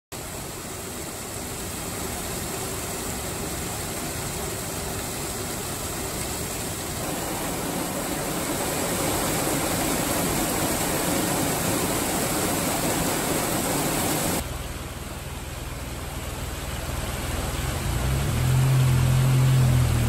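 Hot-spring water pouring from a wooden chute and cascading over rocks into a pool: a steady rushing, splashing noise that grows louder partway through. About fourteen seconds in the rush turns quieter and duller. Near the end a low droning hum rises and becomes the loudest sound.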